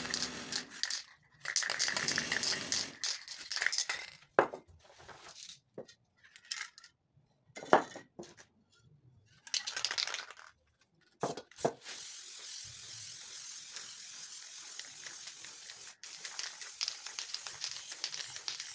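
Aerosol spray paint can hissing in short bursts, with a few sharp clicks in between, then spraying in one long steady hiss from about twelve seconds in.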